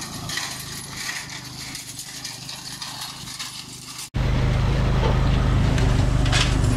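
Engine of a cargo motor tricycle towing a wheeled hay rake, running faintly with light clattering. After a sudden cut about four seconds in it is loud and close, a steady low hum.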